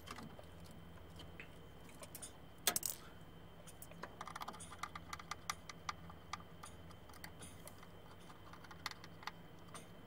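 Faint, scattered clicks and light metallic clatter from a hand nut driver tightening the hose clamps on a furnace draft inducer motor's rubber exhaust coupler. There is one louder click about two and a half seconds in and a run of small clicks around the middle.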